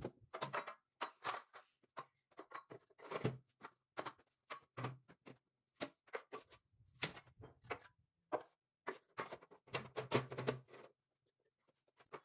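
Irregular knocks, clatters and scrapes of long metal bars being handled and set down on and against a metal-topped worktable, with a pause near the end.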